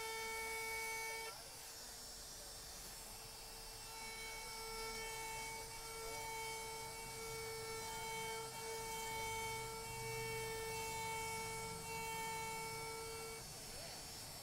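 Compact wood router's motor running at high speed while carving freehand into a wooden sign: a steady high whine whose pitch wavers slightly as the bit cuts. A little over a second in, the sound turns duller and quieter for a few seconds before rising again.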